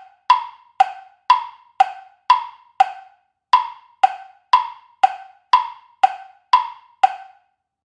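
Countdown-timer sound effect: crisp wood-block-like ticks, about two a second, marking the time to answer. The ticks stop about seven seconds in.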